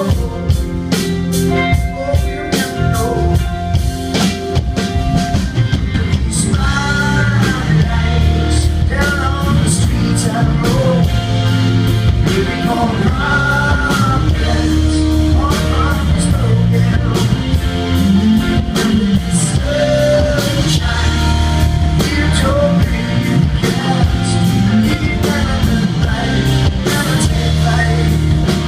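Live rock band playing an instrumental break: a lead guitar line with bending notes over a driving drum kit.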